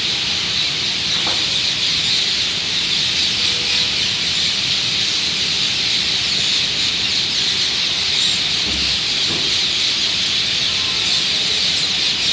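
A huge flock of parrots calling together in a roost tree, a dense, unbroken chorus of countless overlapping calls with no single call standing out.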